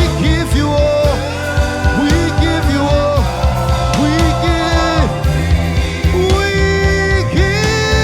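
Live gospel worship music: a band of keys, bass guitar and drums playing a steady beat, with a singer's sustained, sliding notes over it.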